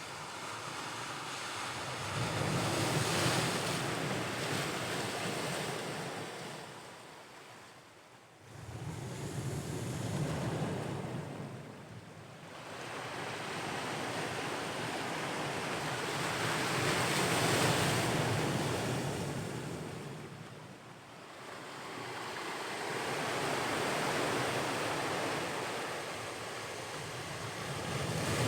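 Ocean waves washing onto the shore, swelling and ebbing in slow surges every several seconds, with some wind on the microphone.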